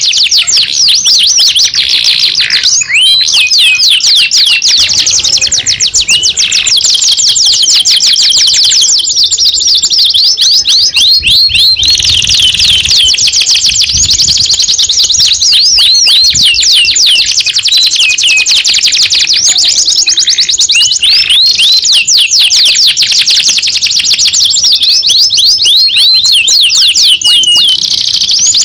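Domestic canary singing continuously in long rolling trills of fast, high repeated notes, switching from one trill to another every few seconds.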